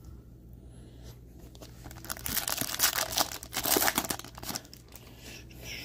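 Foil wrapper of a 2021 Upper Deck AEW trading-card pack being torn open by hand, a dense crackling and tearing from about two seconds in that lasts around two and a half seconds.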